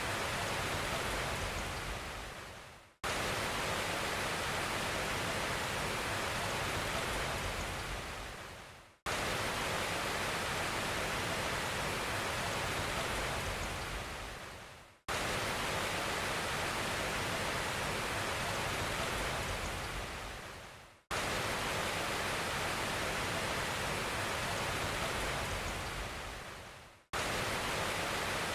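A steady, even hiss of noise laid over the sound track as a loop: every six seconds it fades away over about a second, then cuts straight back in at full level.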